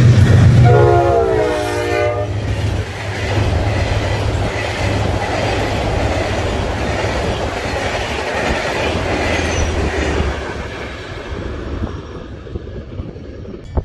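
A GE diesel-electric locomotive runs through with its engine droning and gives a short multi-tone horn blast about a second in. The passenger coaches then rumble and clatter past on the rails, and the sound fades over the last few seconds as the train pulls away.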